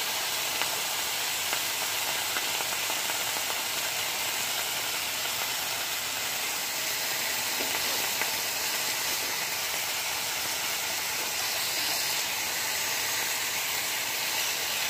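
Bacon strips sizzling in a cast iron skillet as they start to fry: a steady hiss with a few faint pops.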